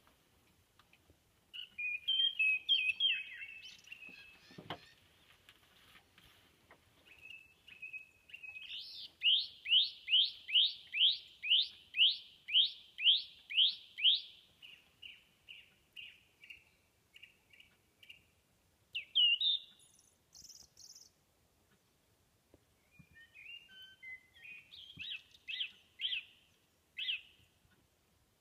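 Caged song thrush singing: a short warbled phrase, then a run of about a dozen repeated high notes, roughly two a second, that fade away, and more repeated-note phrases near the end.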